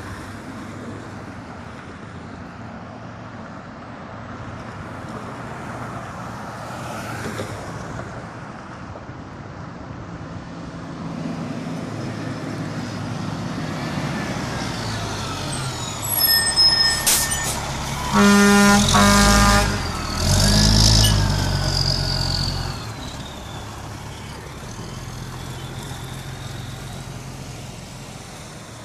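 A 2002 Pierce Dash ladder truck's Detroit Diesel Series 60 engine running as the truck approaches and passes, growing louder. About two-thirds of the way through, its air horn sounds in two loud blasts, and then the diesel runs on as the truck goes slowly by.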